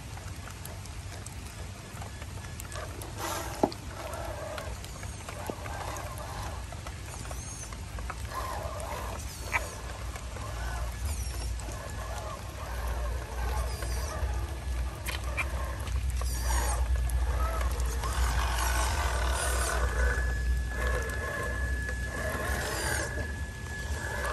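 Birds chirping and calling in a forest, one holding a steady high note near the end, over a low rumble that grows louder about halfway through. Two sharp clicks stand out, one a few seconds in and one nearer the middle.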